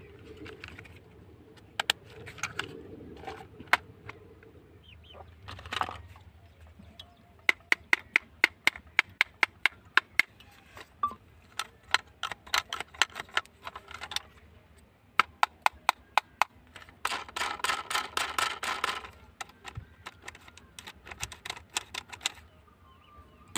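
Sharp clicks and snaps, some single and some in quick runs of several a second, with a dense rattling burst of them about 17 seconds in.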